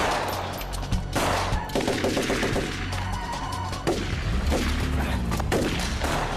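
Volleys of handgun fire, many shots in quick succession, with a fast run of shots about two seconds in.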